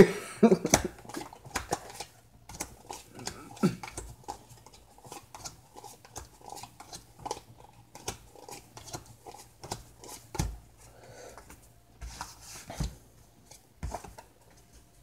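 Old Maid playing cards being handled at a table: an irregular run of small clicks and snaps as cards are sorted, flicked and laid down, with a few dull knocks.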